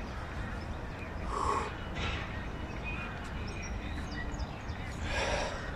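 Faint bird chirps over a steady low background rumble, with a couple of short breaths from a man doing pull-ups.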